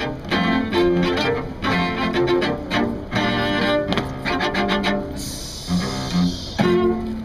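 Cello quartet playing together, with short, accented bowed chords in a driving rhythm, ending on a held final note near the end.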